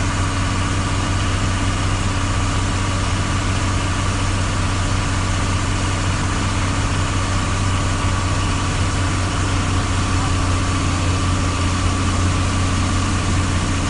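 Engine of a large road vehicle running steadily at low speed, heard from inside the cab as an even low drone.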